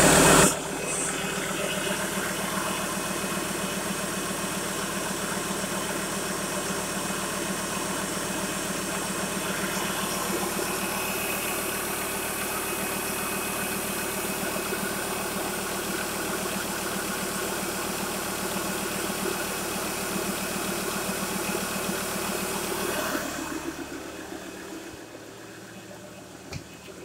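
Ford Ranger's 3.2-litre five-cylinder Duratorq turbo diesel idling steadily, heard close up over the open engine bay, after a brief loud burst at the very start. About 23 seconds in the engine sound becomes quieter and more muffled.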